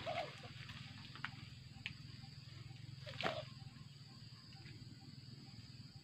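A man climbing in a tree: a few faint, sharp knocks and snaps from the branches, the loudest about three seconds in, over a steady low outdoor hum.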